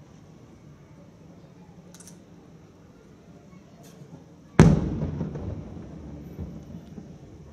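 A single aerial firework shell bursting: one sharp boom about four and a half seconds in, followed by a long echo that dies away over a couple of seconds. Two faint pops come before it.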